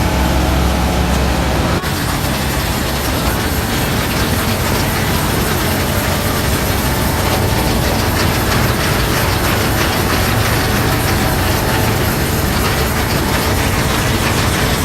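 Harvest machinery running at work: a loud, steady engine under a dense mechanical clatter and rattle, with a brief break about two seconds in.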